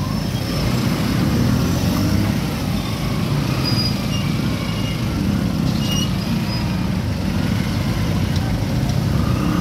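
Motorcycle and vehicle engines running in a slow traffic jam, heard from among the motorcycle taxis: a steady low rumble of small engines. A few short high beeps sound about four to six seconds in.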